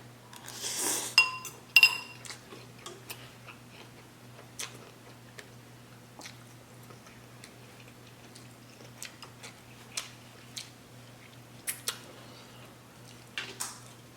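Mukbang eating sounds: a brief noisy rush near the start, then two sharp ringing clinks of a utensil against a dish about a second in and a second later. After that come scattered soft clicks and chewing.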